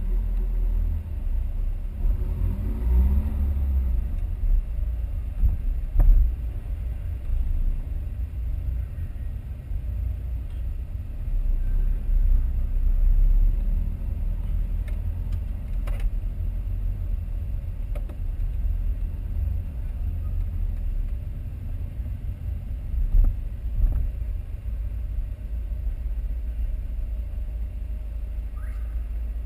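Low, steady rumble inside the cabin of a Ford Fiesta 1.6 TDCi four-cylinder diesel on the move, with a couple of sharp clicks, one about six seconds in and one near the middle.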